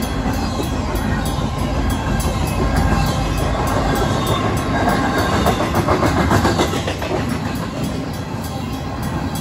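Empty double-stack intermodal well cars rolling past at speed, their wheels rumbling and clattering over the rail joints, busiest about five to seven seconds in. The crossing's WCH mechanical bell rings throughout.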